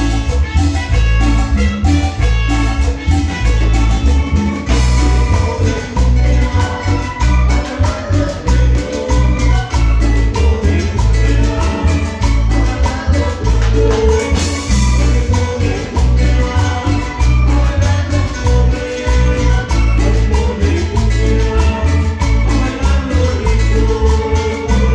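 Cumbia band music, a mostly instrumental passage with a repeating bass line, steady percussion and melody instruments, and a cymbal crash about five seconds in and again near the middle.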